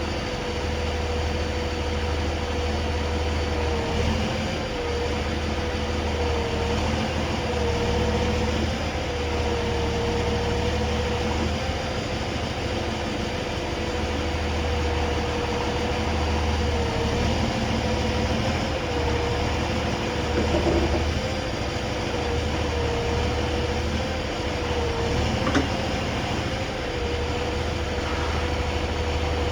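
Heavy rotator tow truck's engine running steadily with a low rumble and a steady whine that wavers slightly in pitch. There is one short knock about three-quarters of the way through.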